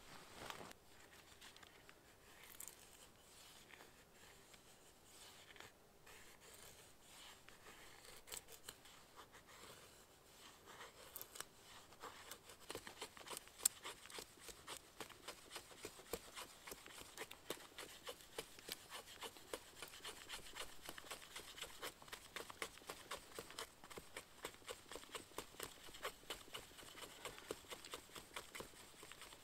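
A blade shaving thin curls off a wooden stick to make a feather stick: quick, short scraping strokes, about three a second. They grow dense from just before halfway on, after a stretch of sparser faint handling sounds.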